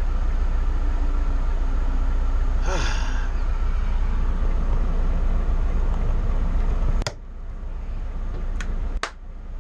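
Motor coach's diesel engine running with a steady low rumble and hiss as its air suspension raises the bus. The sound drops sharply with a click about seven seconds in, and another click follows near the end.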